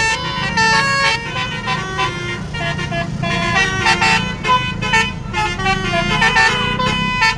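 Basuri telolet horn, a multi-trumpet air horn, playing a melody: a quick run of held notes that step up and down in pitch, several tones sounding together. A steady low drone runs underneath.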